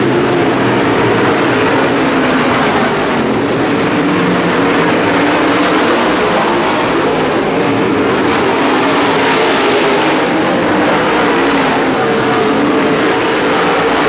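WISSOTA Modified stock car V8 engines running hard at racing speed: a loud, steady drone that rises and falls slightly in pitch.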